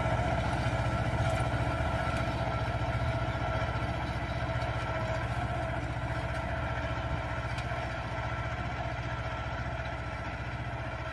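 Mahindra 24 HP mini tractor's diesel engine running steadily as it pulls a ridging implement through the field, slowly growing fainter.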